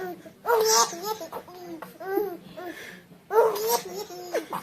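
A baby laughing and babbling in short, high-pitched bursts, with a louder laugh about half a second in and another a little past three seconds.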